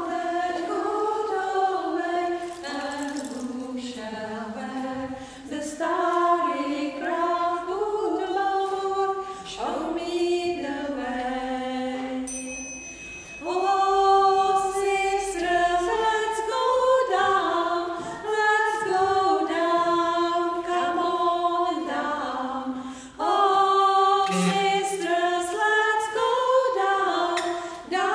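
Three women's voices singing a cappella in harmony inside a church, in phrases with short breaths between them.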